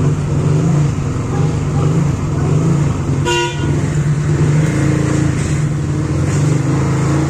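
A motor vehicle engine running steadily with a loud low hum, and a short car horn toot about three seconds in.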